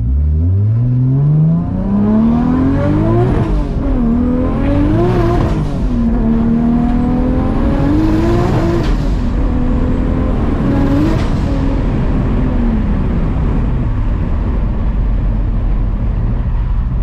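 RB30 straight-six engine of a Nissan S14 Silvia heard from inside the car, accelerating hard. Its pitch climbs and drops four times, then falls away and settles into a low steady drone for the last few seconds.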